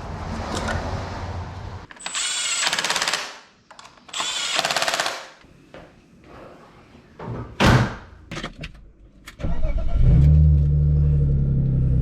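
Two bursts of a power tool, each about a second long, around two and four seconds in, then a sharp clunk. About nine and a half seconds in, the BMW E36 318ti's engine starts and settles into a steady idle.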